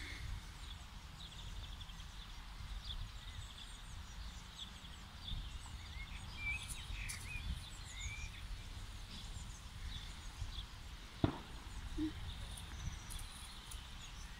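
Songbirds chirping in short, scattered calls over a low rumble, with one sharp click about eleven seconds in.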